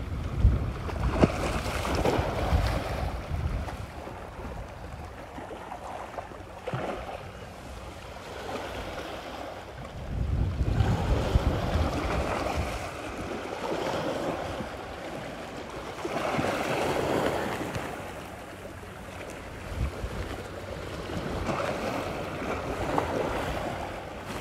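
Wind rumbling on the microphone in gusts, with a rushing noise that swells and fades every few seconds.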